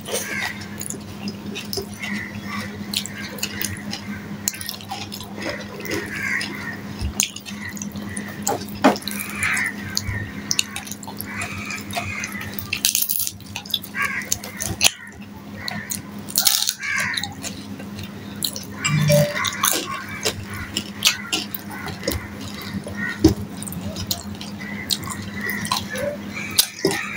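Close-up eating sounds: wet chewing and lip smacking as rice and fried hilsa are eaten by hand, with many short clicks, and fingers working the rice on a steel plate. A steady low hum runs underneath.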